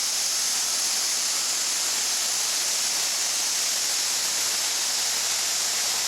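Gleaner S67 combine running steadily at work: an even, unbroken hiss with a faint low hum underneath.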